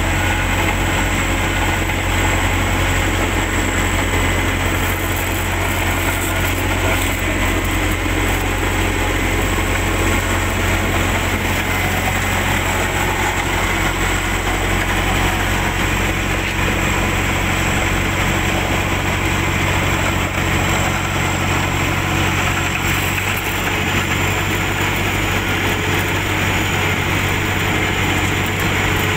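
XCMG asphalt paver's diesel engine running steadily, a constant low drone.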